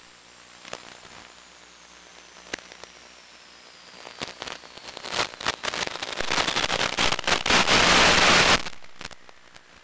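Radio static from an analog FPV downlink losing signal: a steady hiss with scattered crackles that thicken into a loud, dense burst of static about eight seconds in, then die away. A faint whistle falls in pitch through the first half.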